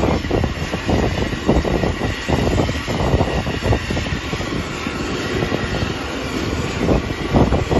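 Aircraft engine running steadily, a dense roar with a faint steady whine above it.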